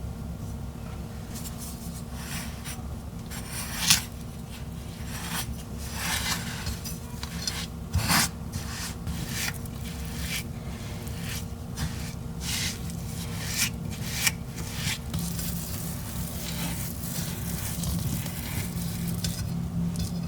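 Utensil scraping and stirring against a mixing bowl, in short irregular strokes, with two sharper knocks about four and eight seconds in. A steady low hum runs underneath.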